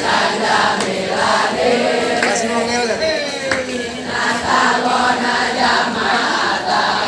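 A large crowd of boarding-school students chanting a yel-yel group cheer together, loud and in a steady beat, with hand clapping.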